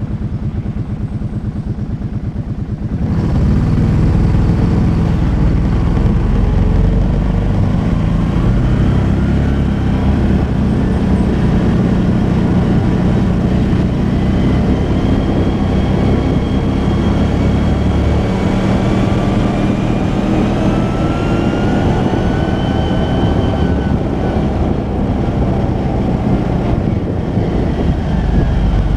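Arctic Cat 650 V-Twin ATV's V-twin engine running, quieter for the first three seconds, then louder as the quad is ridden, its note rising and falling with the throttle.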